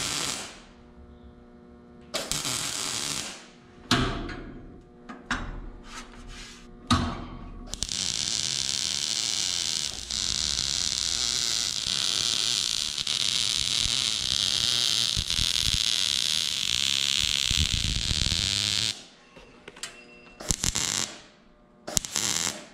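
MIG welder tacking and welding steel tubing roof bows: several short bursts of arc crackle over the first seven seconds, then one continuous weld of about eleven seconds, then a few more short tacks near the end.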